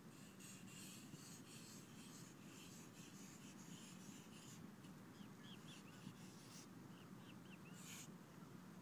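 Faint scratching of a small stick drawing letters in beach sand, in a run of short scrapes through the first half, then a few short high squeaks and one more scrape near the end.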